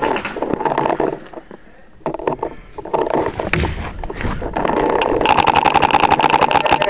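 Paintball marker firing a rapid, even string of shots, well over ten a second, from about five seconds in. Before that come scattered shots and clattering handling noise.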